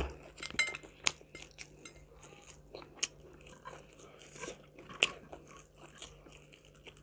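Close-up mouth sounds of chewing crispy battered fried chicken: small wet crunches and crackles, with a few sharper clicks about one, three and five seconds in.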